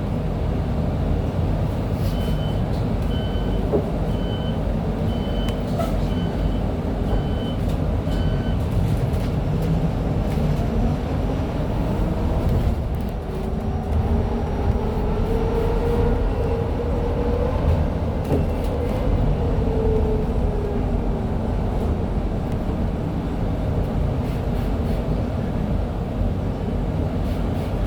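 Electric city bus with a TECO traction motor on direct drive (Huade RAC-700-3000) rolling along with a steady low rumble; from about 2 to 8 s a series of short evenly spaced beeps sounds. About halfway through the bus accelerates hard, its motor whine rising in pitch and then falling back.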